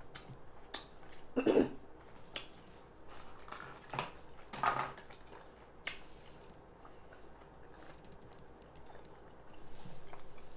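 Close-miked chewing and lip smacking of someone eating soft food, a string of short wet clicks and smacks, busiest in the first six seconds and quieter after.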